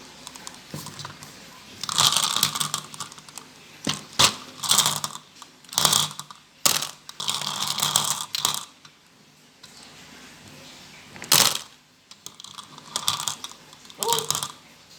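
Plastic marble run toy rattling and clicking as marbles run and clatter through its tracks, in uneven bursts with a few sharp clicks.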